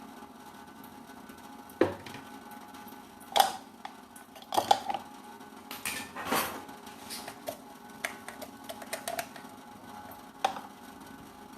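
Scattered sharp knocks and clacks of objects being handled, a handful in all, over a steady faint hum.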